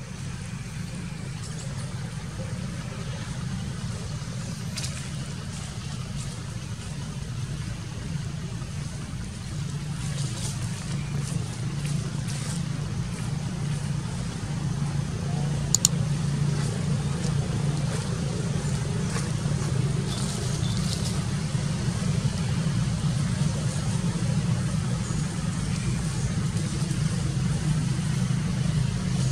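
A steady low hum that grows slightly louder, with scattered faint ticks and one sharp click about halfway through.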